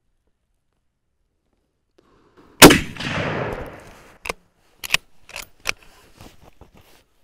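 A single shot from a 1942 Lee-Enfield No. 4 (T) .303 bolt-action sniper rifle about two and a half seconds in, with a long echo that dies away over more than a second. After it comes a string of sharp metallic clicks and clacks as the bolt is worked.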